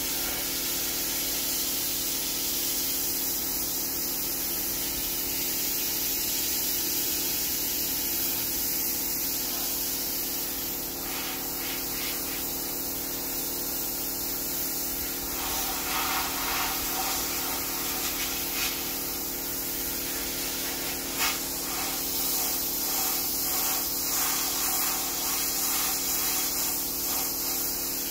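Steady hiss of a hose-fed spray gun working over a rusty pickup-truck frame, over a steady machine hum, with faint irregular spattering from about halfway through.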